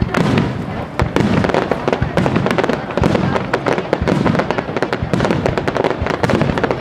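Aerial fireworks display: a rapid string of shells launching and bursting, heard as a dense crackle of many sharp cracks a second over a continuous low booming.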